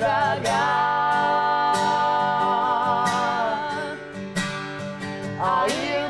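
Live gospel song in Portuguese: a woman sings a long held note with vibrato on the word 'naufragar', over an acoustic guitar. The voice drops out about three and a half seconds in, leaving the guitar, and singing starts again near the end.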